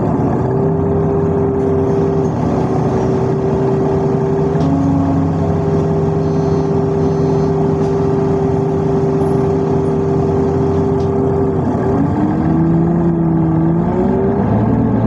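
A vehicle in motion, with a steady motor hum over rumbling running noise. Its pitch dips and then rises again near the end.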